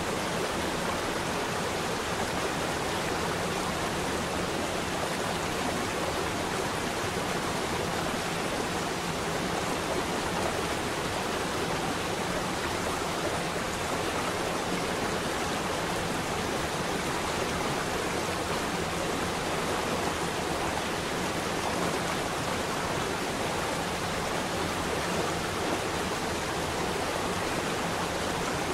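Small waterfall: water falling and splashing down mossy rocks, a steady, even rush with no breaks.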